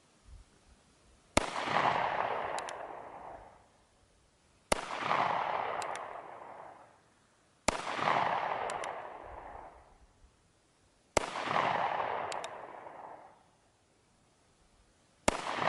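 North American Arms Ranger II .22 Magnum mini revolver fired five times, one shot every three to four seconds, each shot echoing off the surrounding hills for about two seconds. A faint double click follows a second or so after each shot as the single-action hammer is cocked for the next round. The revolver fires all five rounds without the hammer binding, which had been the fault before its factory repair.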